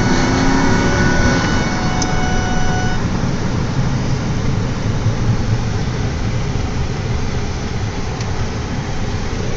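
Road noise of a moving vehicle heard from inside its cab: a steady low engine and tyre rumble with road noise. A faint high steady tone stops about three seconds in.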